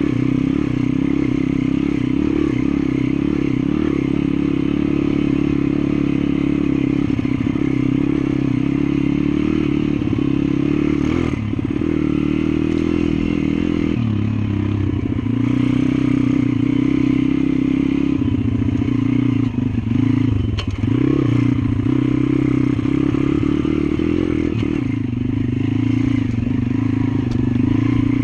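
Welsh Pit Bike's small single-cylinder four-stroke engine running steadily under load on a dirt trail. The throttle is eased off and reopened a few times, most clearly about twenty seconds in, with rattling from the bike over the rough ground.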